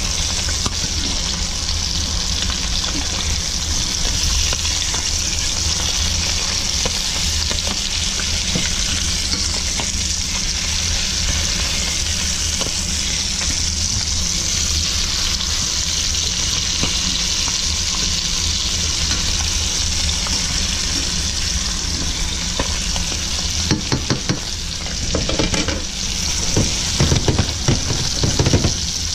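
Yellowtail snapper fillets frying in hot olive oil and butter, a steady sizzle. A metal spatula scrapes and knocks against the pan as the fillets are turned, most often near the end.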